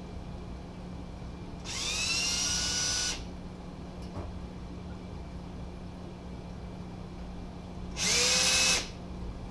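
Electric drill run in two short bursts, each spinning up with a rising whine: one of about a second and a half, two seconds in, and a shorter one near the end. It is drilling small holes into the ceiling of a reptile enclosure.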